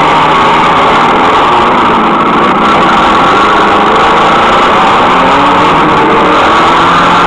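Demolition derby cars' engines running and revving, several pitches sliding up and down over one another, loud throughout.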